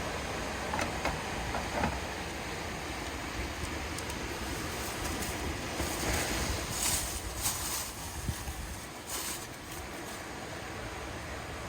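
Sea surf washing on the shore with wind on the microphone, swelling into a brighter hiss about halfway through and again near the end. A few light clicks sound about a second in.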